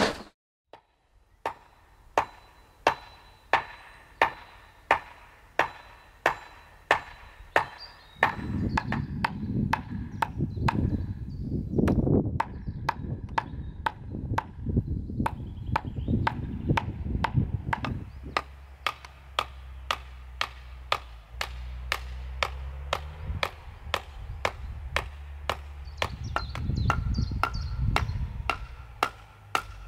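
A wooden pole driven into the ground, sharp knocks repeating steadily at about one to two a second, a little faster near the end.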